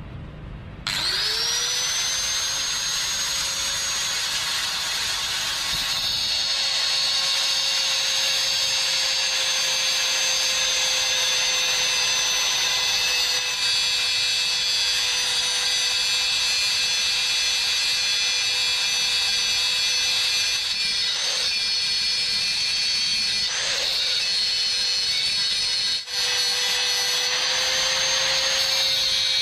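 Angle grinder spinning up about a second in, then running with a steady high whine as its disc grinds a barb into an 8 mm stainless steel rod spearhead. The whine dips briefly a couple of times about two-thirds of the way through.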